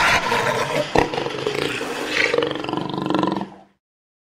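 A big cat's roar, played as an intro sound effect, with a sharp click about a second in. It cuts off abruptly about three and a half seconds in.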